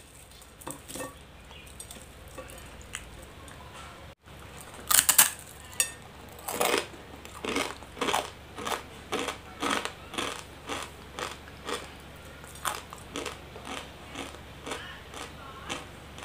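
Dry, uncooked instant noodles crunching between the teeth. A loud bite comes about five seconds in, followed by steady crunchy chewing at about two chews a second.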